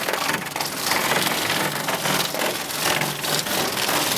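Hail pelting down with heavy rain: a dense, steady clatter of countless small hailstone impacts.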